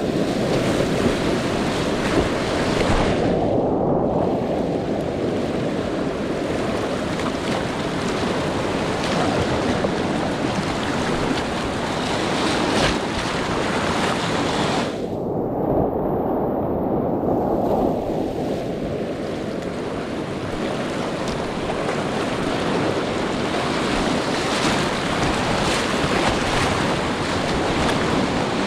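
Class IV whitewater rapids rushing and splashing loudly around a kayak, heard through the kayaker's head-mounted GoPro microphone. Twice the hiss goes dull for a second or more, once about three seconds in and again around fifteen seconds in.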